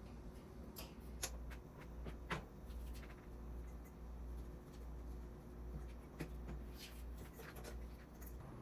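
Small handling noises, a scatter of light clicks and taps, with a couple of sharper ticks in the first few seconds, over a low steady hum.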